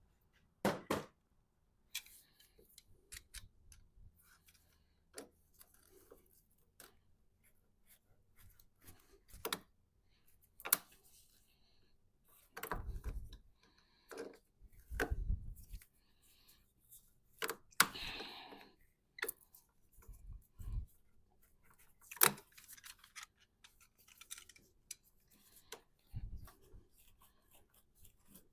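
Scattered clicks, knocks and scrapes of hand tools and a hose clamp as a large radiator hose is worked loose and pulled off, with one longer scraping rush partway through.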